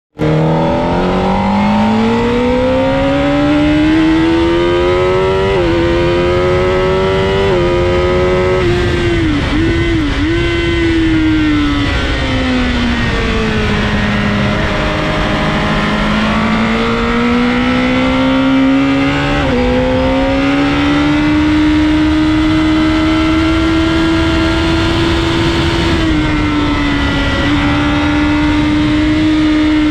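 Sport motorcycle engine at full throttle on track, heard from onboard: the revs climb steadily through the gears, dip sharply twice about ten seconds in, fall away, then rise again and hold high, with a rush of wind over the bike.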